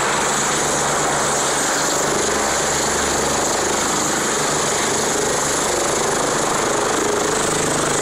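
Helicopter running close by: a steady, loud noise of turbine and rotor blades that does not let up.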